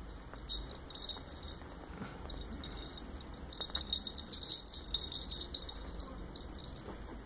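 Light high crackling rustle of a shiny synthetic blanket as a kitten shifts and paws at it, coming in two spells, the second longer.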